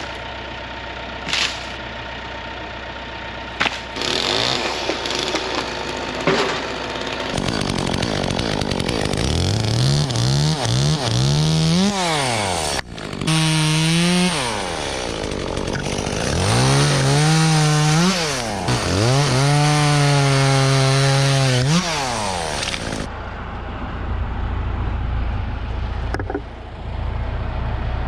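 Gas chainsaw revved up and down again and again, held at full speed for a couple of seconds at a time, after several seconds of a low engine hum broken by a few sharp knocks. Near the end it drops back to a low steady rumble.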